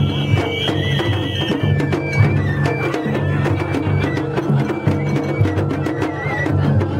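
Japanese festival float music (matsuri-bayashi): taiko drums beaten in a busy, steady rhythm with sharp clacking strikes, under a shrill flute melody of short held notes. A higher held flute tone stops about a second and a half in.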